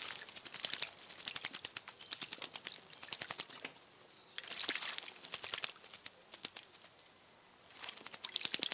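Young common blackbird bathing in a shallow birdbath, beating its wings in the water. Several bouts of rapid splashing and fluttering, with short pauses between them.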